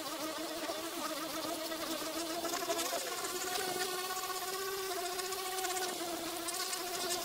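Cheap electric orbital buffer running with its pad against a plastic headlight lens: a steady buzzing hum whose pitch dips briefly about three seconds in, then recovers.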